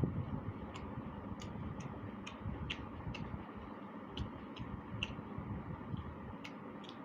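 Eating sounds: chewing, with sharp, irregular wet mouth clicks about once or twice a second.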